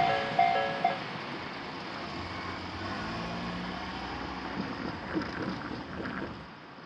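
Japanese railway level-crossing alarm, this crossing's odd-sounding warning, ringing its last few alternating two-pitch tones and stopping about a second in. The noise of the departing train then fades to a steady low rumble.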